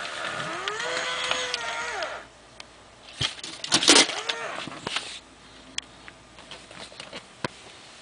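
WowWee robotic crocodile toy making a pitched, whining sound that glides up and down for about two seconds. A short, loud noisy burst follows about four seconds in, then a few scattered clicks.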